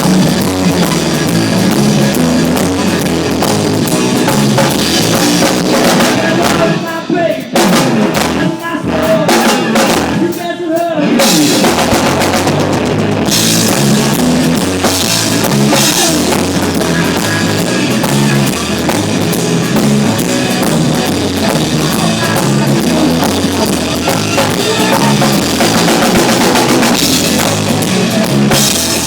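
Rock band playing loud through a PA system: drum kit with bass drum, and guitars. About seven seconds in, the drums and low end drop out for a few seconds, then the full band comes back in.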